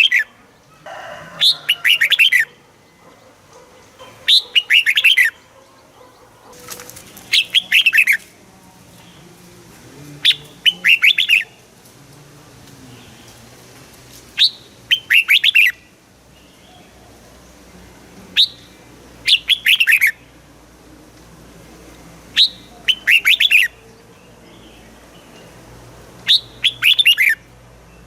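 Red-whiskered bulbul singing: short phrases of quick, falling whistled notes, each about a second long, repeated about every three seconds.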